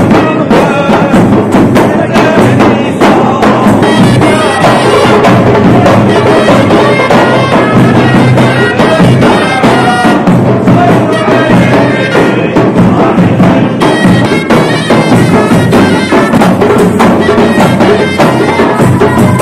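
Loud traditional folk music: a reed wind instrument playing over a steady drum beat.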